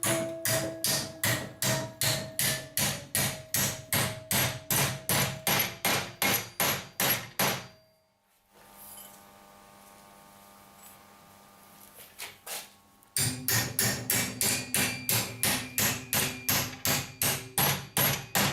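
Hammer blows on metal, steady and even at about three a second, each blow ringing briefly. The hammering stops for several seconds about halfway through, starts again with a few lighter taps, then returns to full steady blows.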